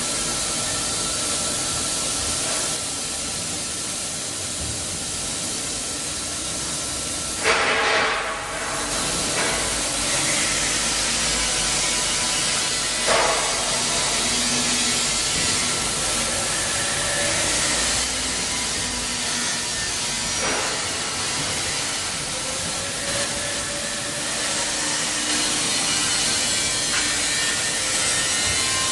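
CHIRON gantry-type milling machine running: a steady hiss and hum with a faint steady tone and a few slow rising-and-falling whines. A loud burst of noise lasting about a second comes about seven seconds in, and a sharp knock comes about thirteen seconds in.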